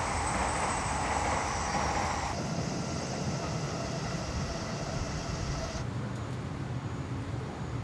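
Steady hiss and low rumble from the C62 2 steam locomotive standing in steam, with smoke rising from its chimney. The noise drops suddenly about two seconds in and again near six seconds, leaving a quieter steady background.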